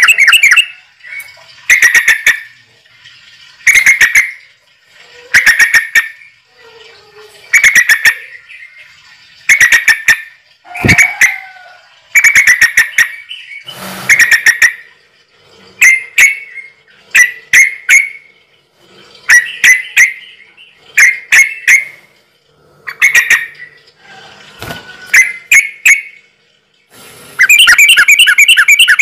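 A bird calling loudly and over and over, each call a quick run of harsh pulsed notes. The calls come about every two seconds at first, then in shorter, more irregular bursts.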